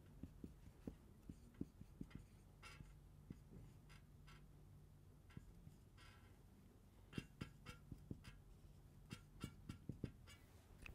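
Faint marker pen writing on a whiteboard: irregular light taps and short squeaky-scratchy strokes as a chemical formula is drawn.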